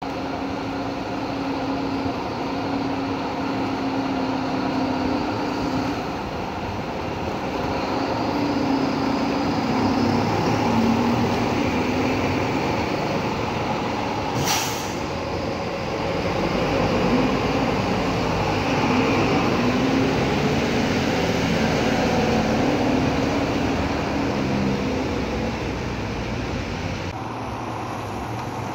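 Diesel city buses (Caio Apache Vip bodies on Mercedes-Benz chassis) running in a terminal, their engine drone rising and falling as one pulls past close by, over a steady hiss of rain on wet pavement. About halfway through there is a short, sharp hiss of air.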